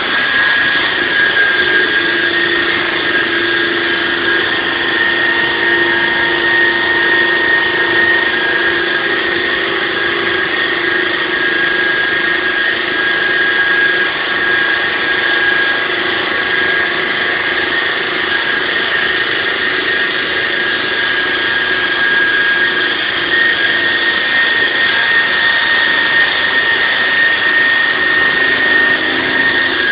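SAW160 concrete saw running steadily: a loud, even machine noise with a steady high whine.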